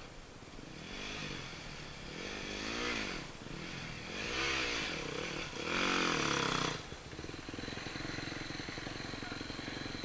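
Enduro dirt bike climbing a rocky trail, its engine revving up and down about four times in quick bursts as the rider works the throttle, then settling to a steadier lower note as it gets closer.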